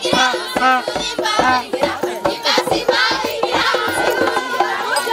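A group of voices singing a lively, chant-like song over a steady beat.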